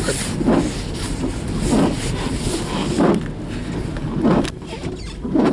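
Car driving, heard from inside the cabin: steady road and engine noise, with a low thud recurring about every second and a bit.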